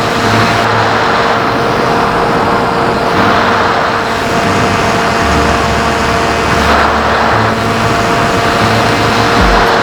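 Onboard audio of an electric RC plane in flight: its brushless motor and 10-inch propeller run steadily with a constant whine over loud wind rush.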